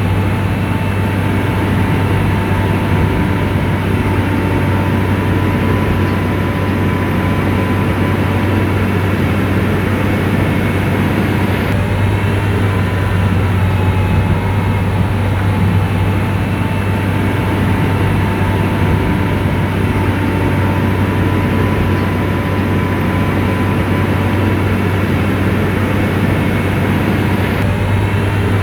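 Komatsu bulldozer's diesel engine running steadily under load, a deep continuous hum with a thin steady whine above it.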